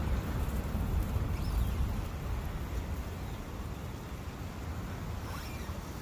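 Forest ambience by a brook: wind blowing, with a heavy low rumble that is a little louder in the first two seconds, over a steady hiss. A few faint short sounds come near the end.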